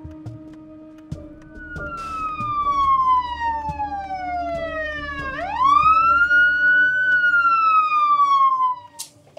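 Police siren wailing: one long, slowly falling tone, a quick rise about five seconds in, then another slow fall, cutting off near the end. Low steady tones lie beneath it.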